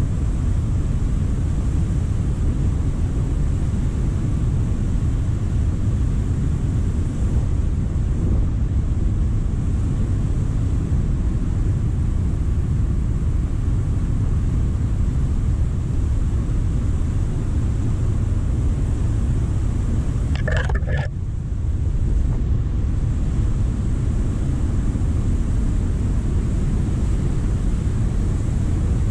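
Steady, loud, low roar of Cumberland Falls in flood, a large volume of water pouring over the falls. Once, about two-thirds of the way through, a brief higher-pitched sound cuts through.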